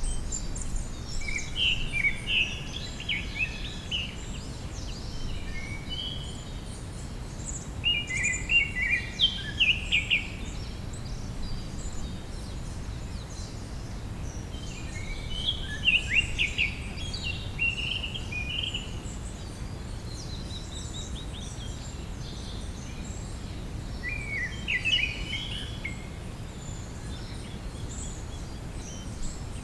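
A songbird singing short, rapid phrases of chirping notes, four phrases spaced several seconds apart, with fainter bird calls in between over a steady low background hiss.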